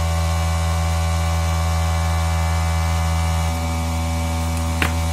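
Cooling fan of a Texa ZX7-250 welding inverter running with a steady, very noisy hum. It is out of balance and vibrates because a piece of one blade is broken off, and it stays noisy even after lubrication. One short click near the end.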